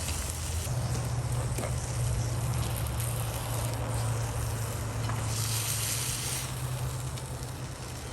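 Burger patties sizzling on a camp grill, with a steady low hum underneath and the sizzle growing louder for a second or so past the middle.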